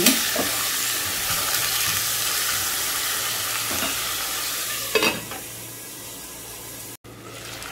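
Raw chicken pieces sizzling in hot oil in a metal pot over a high flame, stirred with a metal spoon. About five seconds in, a metal lid goes on with a clank, and the frying carries on quieter and muffled.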